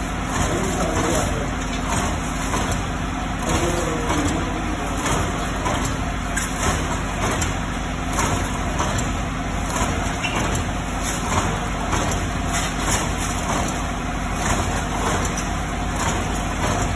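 Sachet water filling and sealing machines running steadily: a constant low hum with an ongoing mechanical clatter. Plastic water sachets rustle as they are stuffed into a bag.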